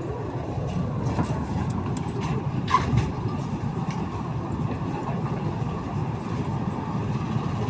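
Steady low rumble of an AS-02 metro train, with a few faint clicks and a brief short squeal about three seconds in.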